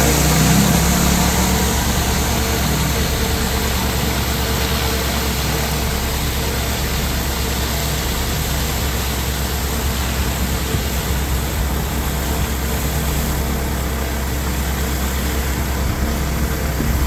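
Gas engine of a pressure-washing rig running steadily, with a strong low hum.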